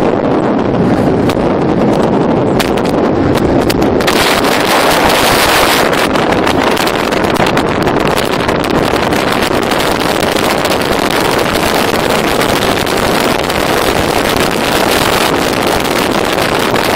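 Rigid inflatable boat under way: heavy wind on the microphone over the steady running of its Mercury Optimax 200 V6 two-stroke outboard and water rushing along the hull. The wind noise turns harsher and brighter about four seconds in.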